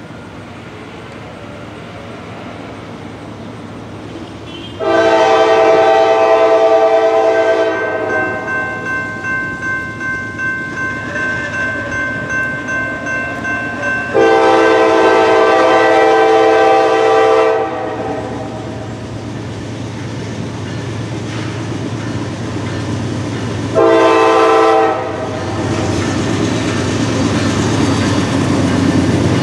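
Norfolk Southern GE D9-40CW diesel locomotive's air horn sounding the grade-crossing signal as the train approaches: two long blasts, one short, and the last long blast beginning at the very end. Between the blasts a crossing warning bell rings about twice a second, and the engine and wheel rumble grow steadily louder as the train nears.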